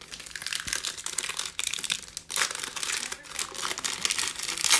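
Foil wrapper of a Panini Mosaic basketball card pack crinkling and tearing as it is ripped open by hand: a dense run of sharp crackles, with a short pause a little past two seconds in.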